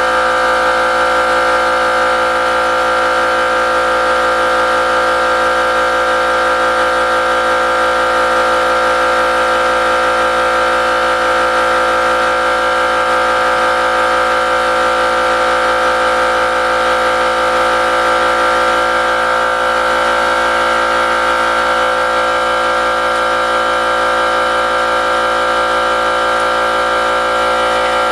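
A steady machine drone with a strong constant whine, unchanging in pitch and level.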